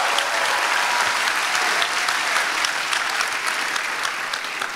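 Large audience applauding, many hands clapping together, slowly dying down toward the end.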